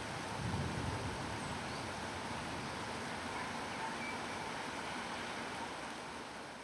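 Steady rain falling on forest foliage, an even hiss, with a low rumble in the first second; the sound begins to fade out near the end.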